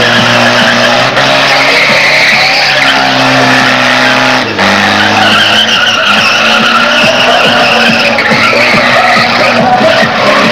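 Car engine held at high revs while the tyres screech and skid through a spinning 'cavalo de pau' stunt manoeuvre.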